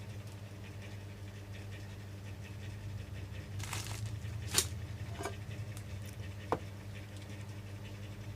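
A few small, sharp clicks and taps, the loudest about four and a half seconds in, over a steady low hum: tools and parts being handled during a phone glass repair.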